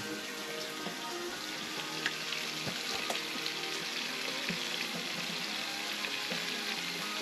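Mule deer meat and vegetables sizzling in a frying pan, a steady hiss with small crackles throughout.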